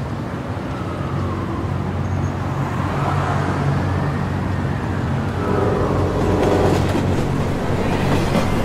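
Steady low rumble of city traffic and trains at night, growing a little louder toward the end.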